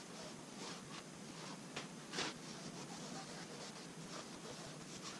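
Faint swishes of a paintbrush spreading varnish over the epoxy-coated fiberglass interior of a strip-built wooden kayak hull: a few separate strokes, the loudest about two seconds in, over a low steady hiss.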